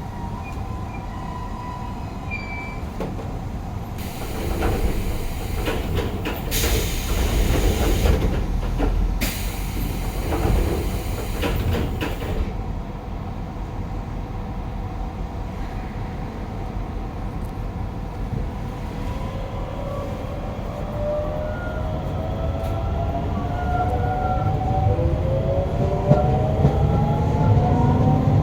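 Interior running sound of the Hokuso 7301 train, a low rumble with a stretch of loud hiss in the middle. From about two-thirds of the way through, the GTO-VVVF traction inverter whines in several parallel tones that rise in pitch as the train accelerates, and the running noise grows louder.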